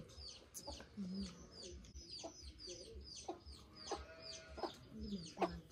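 Birds calling: a steady run of short, high, falling chirps, about three or four a second, with a few brief lower calls between them.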